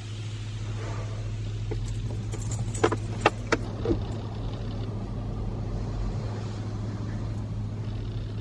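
Touchless automatic car wash spraying a car, heard from inside the cabin: a steady hiss of water over a low hum. About three seconds in come a few short, sharp clicks and knocks.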